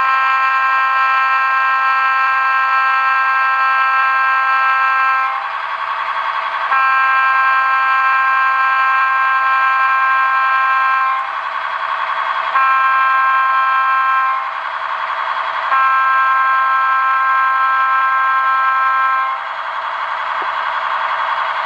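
Recorded RDC horn sound from a ZIMO MX649 DCC sound decoder played through a small sugar cube speaker: a long blast ending about five seconds in, then a long, a short and a long blast, the grade-crossing signal pattern. The steady running sound of the RDC sound file continues underneath.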